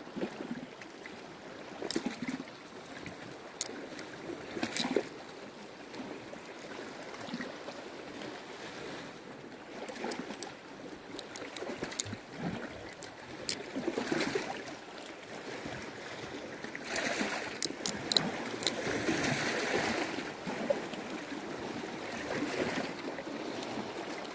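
Knife whittling thin wooden pegs: scattered sharp clicks and scrapes as the blade cuts the wood, over a steady background wash of water.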